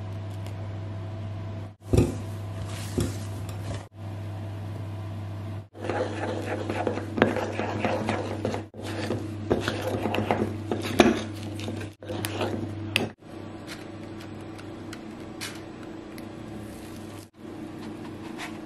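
Batter being mixed in a stainless steel bowl: a spatula and whisk scrape and clink against the metal in short stretches, busiest from about six to twelve seconds in. A steady low hum runs under the first part and drops away about twelve seconds in.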